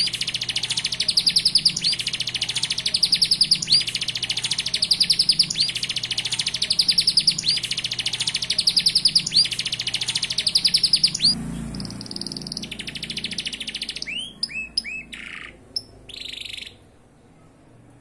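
Domestic canary singing in very rapid machine-gun trills ('tembakan'), phrase after phrase repeating about every two seconds. About eleven seconds in the song changes to a steadier high phrase, then a few short rising chirps, and stops shortly before the end.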